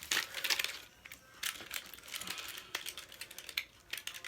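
Plastic packaging being handled: a string of irregular light clicks and crinkling, as a false-eyelash tray or case is fiddled with.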